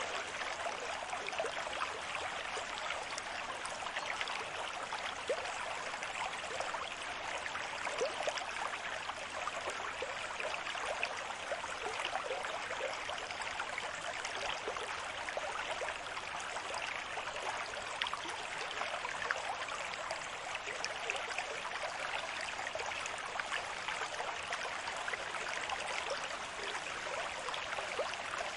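Gentle beach waves: a steady wash of fizzing, crackling water with no distinct surges or breaks.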